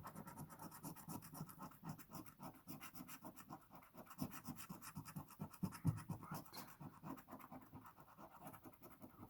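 Scratch-off lottery ticket being scratched with a coin or scraper: quick, repeated rubbing strokes across the card.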